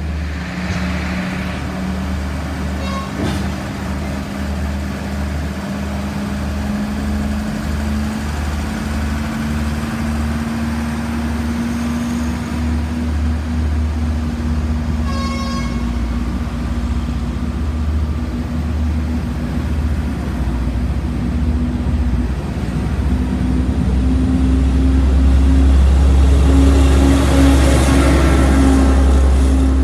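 Sri Lanka Railways Class S12 diesel multiple unit pulling out: its diesel engine drones steadily, the pitch creeping up as it gathers speed, with the carriages rolling past. A short horn toot sounds about halfway, and the engine grows louder near the end as the power car comes by.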